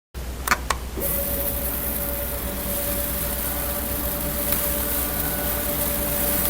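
Two clicks, then a small electric motor or blower starts, spins up within a moment and runs steadily with a whine, a low hum and a high hiss.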